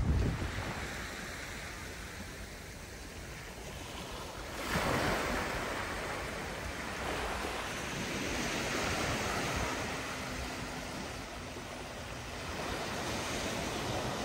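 Small waves breaking and washing up over a dark pebble beach, the wash swelling several times as each wave comes in. Wind buffets the microphone with a low rumble at the start.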